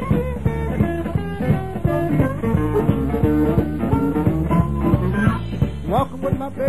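Live electric blues band playing an instrumental passage: electric guitar lines over a steady bass and drum beat, with one note sliding upward near the end.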